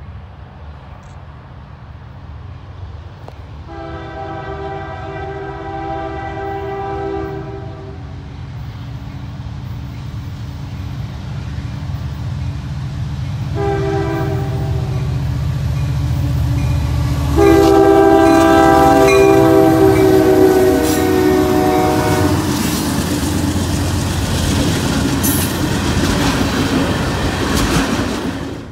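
CN diesel freight locomotive approaching and passing, sounding its air horn three times (a long blast, a short one, then a longer, loudest blast) as a warning for the grade crossing, over a diesel rumble that grows louder. In the last few seconds the locomotive passes and the cars roll by with wheel clatter and clicks over the rail joints.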